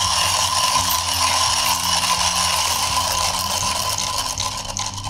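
Comandante hand coffee grinder being cranked steadily, its conical burrs crushing whole coffee beans in a continuous dry grating. The grinder is set at 30 clicks, a medium grind for a V60 pour-over.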